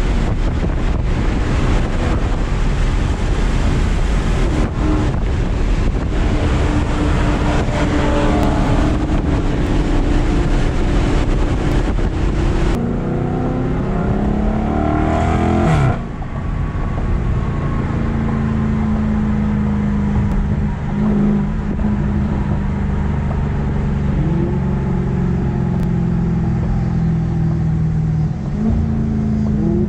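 Dodge Charger Daytona 392's 6.4-litre HEMI V8 droning at cruise, heard from inside the cabin over loud wind and road noise. About halfway through the wind noise drops away. The engine note rises and then falls sharply, then settles into a steadier, lower hum, and rises again near the end.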